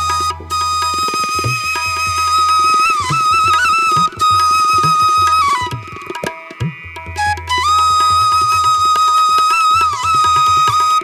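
Background music: a long, held melody line with small pitch bends over a steady drum beat.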